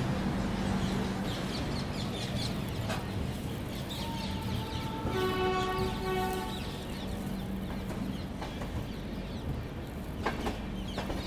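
Train running with a steady hum and rumble, and a locomotive horn sounding for about a second and a half around five seconds in.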